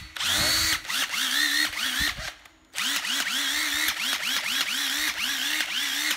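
Motor of a used Hitachi cordless driver running unloaded, its trigger pulsed in quick bursts. Each burst whines up and falls away, about three a second, with a short pause about two seconds in.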